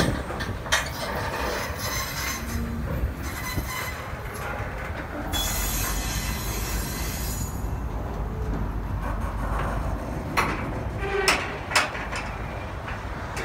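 Loaded old CSX rock hopper cars rolling slowly past on a curve, with wheels and couplers rumbling. The wheels squeal for a couple of seconds near the middle, and there are several sharp clanks near the end.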